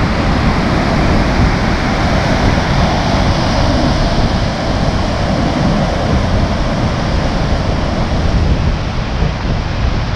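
Heavy surf: a strong set of waves breaking and washing over the shoreline rocks and breakwater blocks, heard as a continuous wash of noise with no single crash standing out. Wind buffets the phone's microphone with a low rumble.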